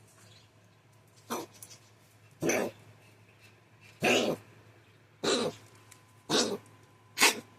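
A pet's repeated coughing: six short, harsh coughs, roughly one every second or so.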